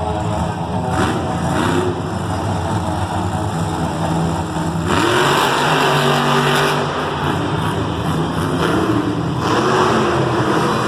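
Monster truck engines racing at full throttle, their pitch rising and falling as they rev, growing louder about five seconds in.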